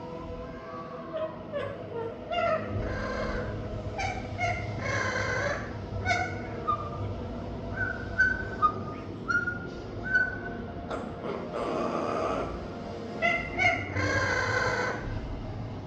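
A pet parrot calling: short chirps and clear whistled notes, mixed with several longer harsh squawks.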